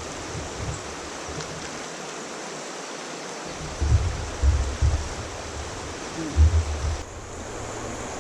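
Steady rush of moving river water, with a few brief low rumbles about halfway through and again near the end.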